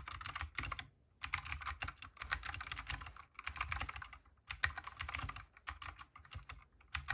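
Typing on a Keychron K6 65% mechanical keyboard with clicky blue switches: quick runs of keystrokes in bursts, with brief pauses between them.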